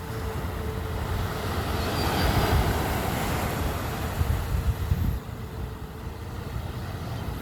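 Wind rumbling on the microphone over bayside ambience, with a faint steady engine hum. A wash of noise swells around two to three seconds in, and the wind rumble drops about five seconds in.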